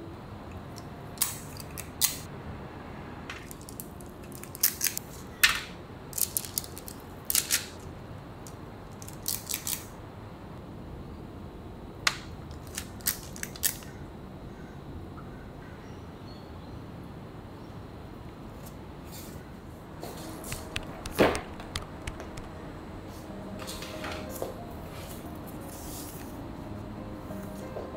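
Scattered sharp clicks, scrapes and paper rustles of a metal lever cookie scoop and parchment paper as chocolate chip cookie dough is portioned and handled. A heavier knock comes about three-quarters of the way through and is the loudest sound.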